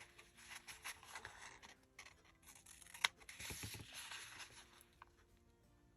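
Quiet paper-crafting sounds: scissors snipping and paper and washi tape being handled, with one sharp click about three seconds in.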